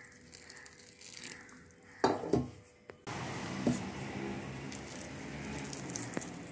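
Hot water poured into rice flour and grated coconut in a stainless steel bowl, then a spatula stirring and scraping through the damp flour against the bowl's sides. A short, louder jumble of handling noise comes about two seconds in.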